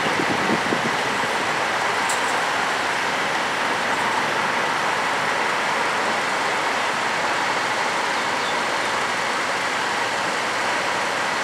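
Steady background noise of a construction site amid city traffic: diesel machinery and road traffic running evenly, with one faint click about two seconds in.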